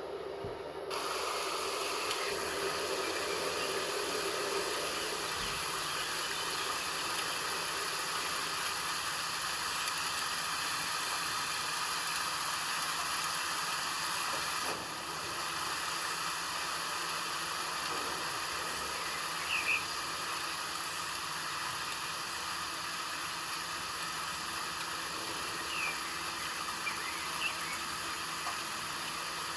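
Steady rain, an even hiss that steps up slightly about a second in, with a few short bird chirps about two-thirds of the way through and again near the end.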